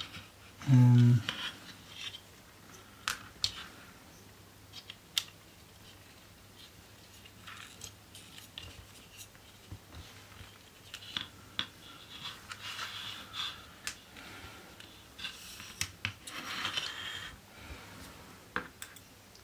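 Small plastic model-kit parts being handled and pressed together by hand: scattered light clicks, scrapes and scratchy rubbing, busier in two stretches in the second half. About a second in comes a short, low hum of a voice, the loudest sound.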